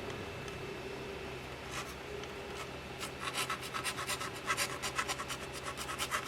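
A fast run of small, sharp clicks and scratches from hand work on a mechanical keyboard with Outemu switches, roughly eight a second. They start about halfway through, after a few isolated clicks.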